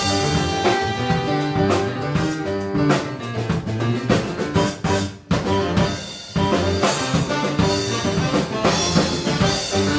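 Live jazz-fusion band playing: drum kit, electric guitar, piano and keyboards together. The band drops out suddenly about five seconds in and comes back in full about a second later.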